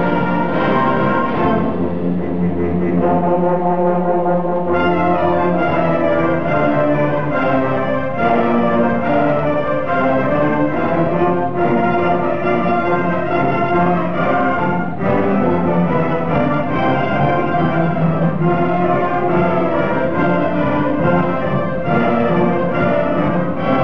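Junior high and middle school concert band playing a brass-heavy passage, with trombones to the fore. About two seconds in the texture thins out, and the full band comes back in at around five seconds.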